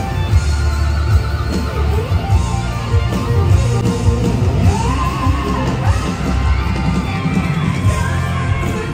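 Live rock band playing loudly through a stadium PA during a soundcheck, with heavy drums and bass. A lead melody slides up and down in pitch about five seconds in.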